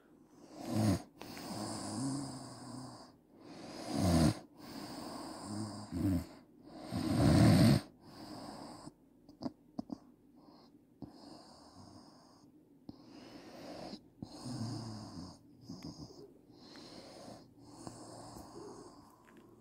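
A woman snoring in her sleep: four loud snores in the first eight seconds, the loudest about halfway through, then softer breathing for the rest.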